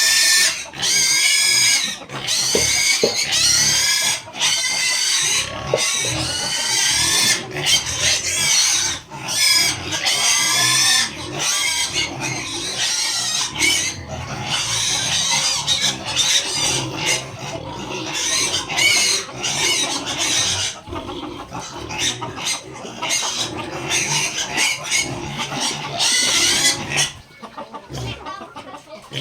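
Backyard chickens calling, with chicks peeping: a dense, continuous chorus of high, quickly repeated calls that thins out and grows quieter near the end.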